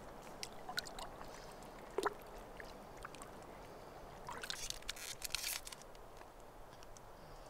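Faint water sloshing and trickling at the shallows, with a sharp knock about two seconds in and a short flurry of splashing a little past the middle.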